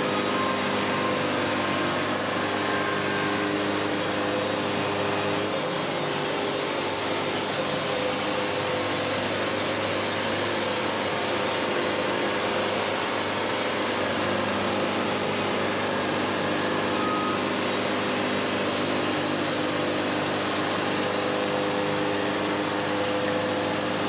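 Wood-Mizer LT70 bandsaw mill running at a steady pitch as its band blade cuts a board from a quartered log.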